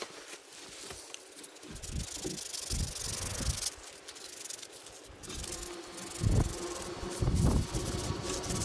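Rustling and handling noise as hands turn a small wooden catapult frame against a padded nylon jacket, with a couple of low thumps in the second half.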